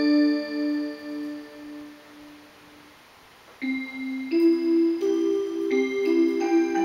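Seiko musical wall clock playing a Christmas melody. The notes ring and fade away over about the first three seconds, there is a short near-pause, and then the tune starts again a little past halfway.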